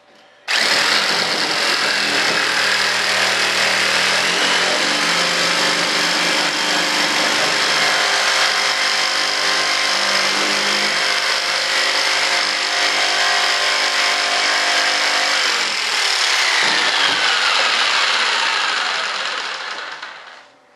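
Corded jigsaw cutting through the cured resin-and-fiberglass edge of a mold, the blade and motor running steadily. It starts abruptly about half a second in, dips briefly, then winds down near the end.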